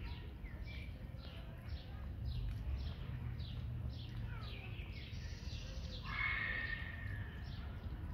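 A cat lapping water from a plastic tub: soft, quick licks about two or three a second, which stop about five seconds in. About six seconds in, a louder hiss with a steady high tone lasts a second or so, over a low background rumble.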